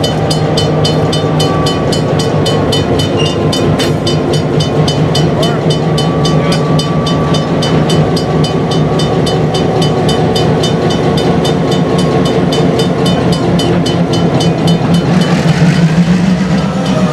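Diesel locomotive's engine running steadily as it pulls a freight train slowly, with its bell ringing in a steady rapid rhythm. Near the end the bell stops and the engine note rises slightly.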